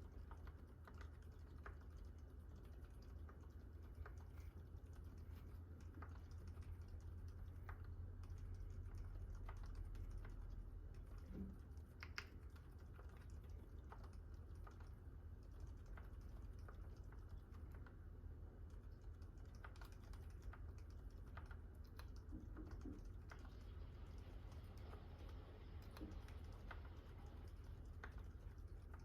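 Typing on a GMMK Pro mechanical keyboard with a brass plate and fully lubed Gazzew Boba U4 silent tactile switches: quiet, scattered keystrokes over a low steady hum.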